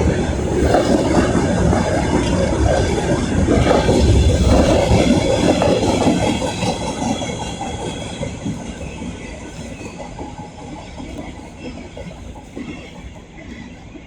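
Train rolling past on the rails, loudest about four to six seconds in, then steadily fading as it moves away.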